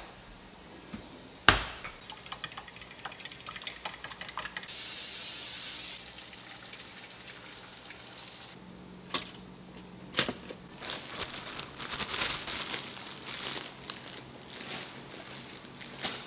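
Kitchen handling sounds: a sharp knock, a run of fast even ticking, a steady hiss of about a second, then scattered clinks of dishes and utensils.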